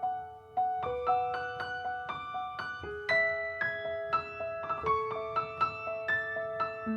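Background music: a gentle piano melody of struck notes that ring and fade.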